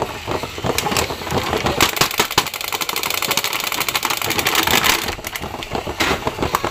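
Crinkly plastic packaging crackling and rustling as a toy is pulled from its bag and box, with a fast run of dense clicks in the middle.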